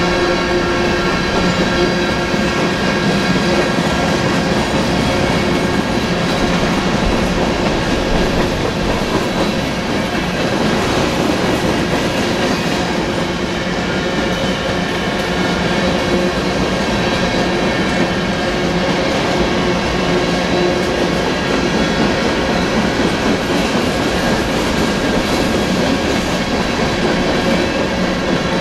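Freight cars of a long manifest train rolling past at a grade crossing, wheels clacking steadily over the rail joints. Crossing bells ring over it as steady tones.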